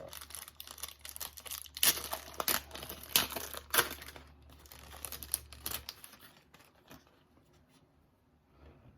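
A baseball card pack's wrapper being torn open and crinkled, with several sharp crackles during the first half, then settling to a faint rustle after about six seconds.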